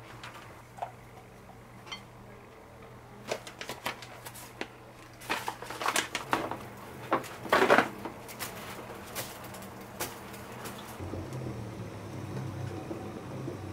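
Clear plastic bag crinkling and rustling as raw squid is handled and tipped out of it: a cluster of short crackles, loudest about eight seconds in, after a few light kitchen clicks, over a faint steady low hum.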